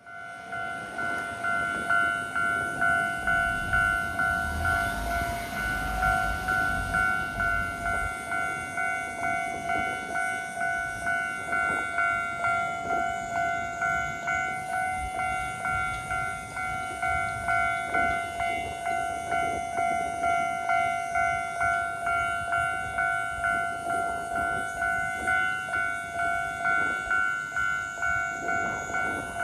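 Japanese level-crossing alarm ringing: an electronic 'kan-kan' bell tone repeating evenly about twice a second, from a crossing with four warning units sounding together. It starts abruptly, and a low rumble swells a few seconds in.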